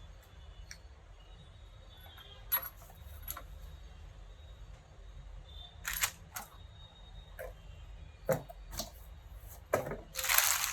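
Scattered light clicks and knocks of soldering-iron parts and their packaging being handled, a few seconds apart, with a burst of rustling starting near the end.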